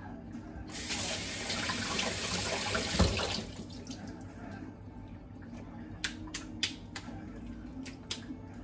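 Kitchen sink faucet running water for about three seconds, starting about a second in and then shut off. Later come a few sharp clicks as things are handled at the sink.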